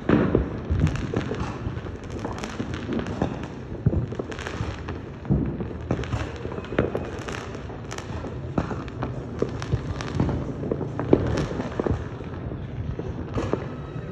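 New Year's fireworks going off all around: many irregular bangs and pops of differing loudness, overlapping over a continuous low rumble of further bursts, the sharpest bang about eleven seconds in.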